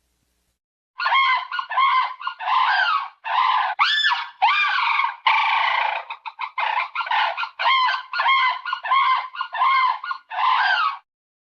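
Sound-designed were-hyena creature call built from mixed animal and monster recordings: a rapid string of short calls, each rising and falling in pitch, about two a second. It starts about a second in and stops near the end.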